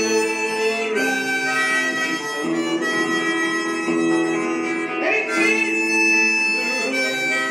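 Harmonica played in chords with the hands cupped around it, held notes changing every second or two.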